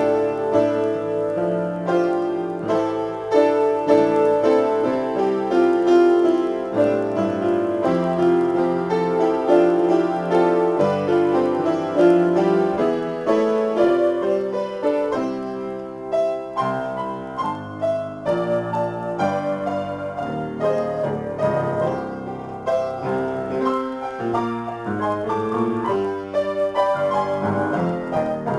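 Upright piano played solo, improvising: full, dense chords for the first half, then thinner, higher runs, growing softer near the end.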